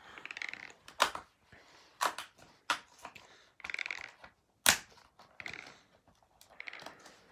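Cardboard chocolate Advent calendar being handled and turned over: a few sharp cracks and clicks of the card flexing and being tapped, with short bursts of fingers rustling over its surface in between.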